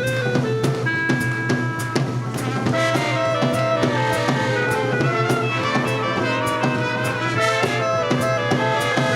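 Swing dance band playing: brass section holding sustained chords over a steady drum-kit beat.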